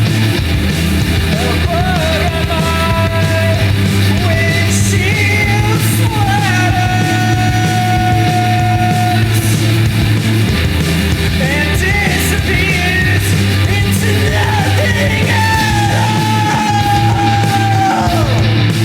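Loud punk rock music with a yelled vocal over a dense, steady band backing.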